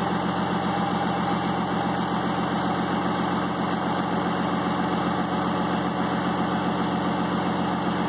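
Engine of a lifted monster truck built on a deuce-and-a-half military truck idling steadily, with a fast, even firing pulse.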